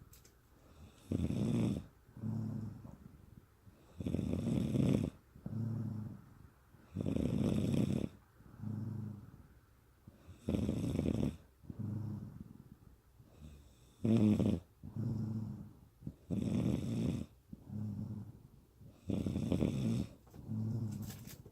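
A woman snoring in a steady rhythm, about one breath every three seconds. Each breath is a rough, noisy snore followed by a shorter, lower, buzzing one.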